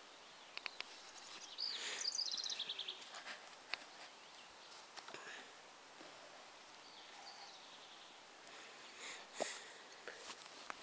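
Nylon cam strap being handled and cinched around a foam sleeping pad splint. A quick run of rattling clicks about two seconds in is the webbing pulled through its cam buckle, with scattered handling clicks and a sharper knock near the end.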